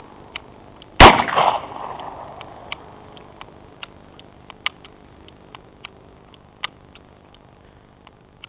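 A single handgun shot from a .38 Special revolver about a second in, its report trailing off over about a second, followed by faint scattered clicks.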